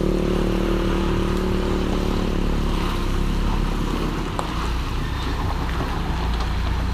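A truck's diesel engine going past, its note sliding slowly down over the first few seconds, then a steady low rumble of engine and road noise.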